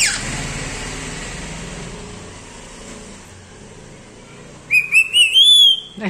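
Black-capped lory whistling: a short rise-and-fall whistle at the very start, then about five seconds in a loud run of quick whistled notes that climbs into a longer upward glide.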